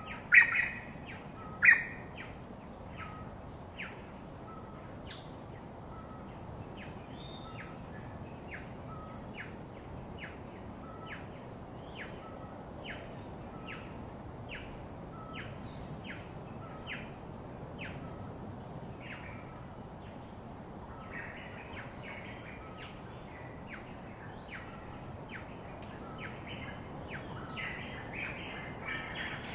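Birds chirping: a short call repeated about every half second, with a few loud calls at the start and a denser burst of chirping from about two-thirds of the way in and again near the end, over a steady low background hiss.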